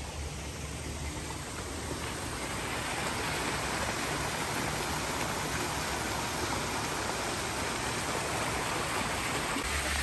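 Garden stream running and splashing over rocks in a small cascade, a steady rush of water that grows louder about two seconds in.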